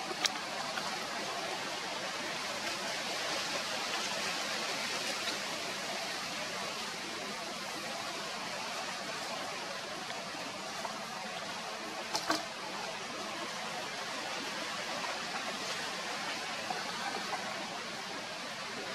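Steady forest background hiss, even and unchanging, with a brief click near the start and a quick double click about twelve seconds in.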